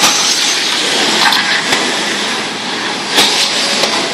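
Radio-controlled short-course trucks racing on a dirt track: a steady hiss of motors and tyres on the dirt, with a sharp knock about three seconds in.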